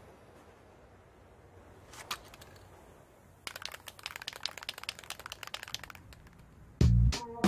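A few faint clicks about two seconds in, then several seconds of dense crackling and crinkling. Near the end a loud, deep hit as music comes in.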